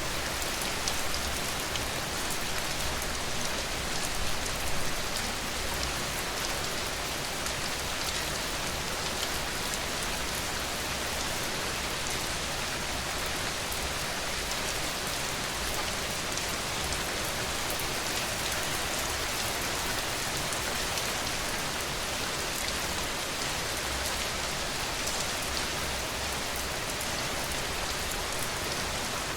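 Steady rain falling on a surface, an even hiss with scattered individual drop ticks.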